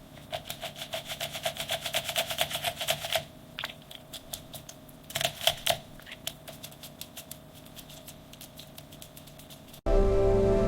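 A fast run of mechanical clicks, about ten a second, for about three seconds, then a few scattered clicks.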